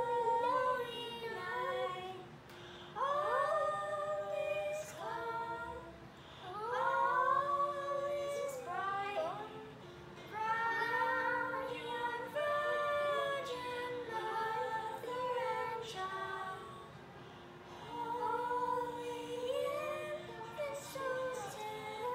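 A young girl singing a song in long, held phrases, with pauses between lines, over quiet recorded accompaniment.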